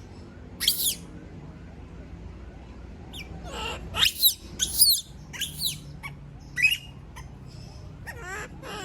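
Pet monkey screaming: a series of short, high-pitched shrieks that glide in pitch, clustered in the middle and with another near the end. These are distress calls at being left alone.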